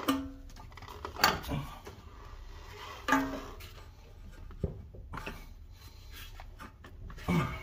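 Irregular metal knocks, about six, a couple with a brief ring: a hammer striking the end of a Honda Civic's CV axle to drive its splined shaft out of the front wheel hub.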